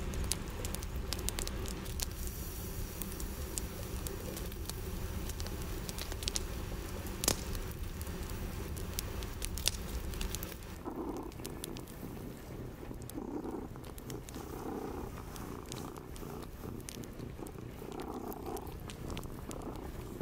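Wood fire crackling with sharp pops inside a metal stove. About halfway through, a domestic cat purring, swelling and fading about every second and a half.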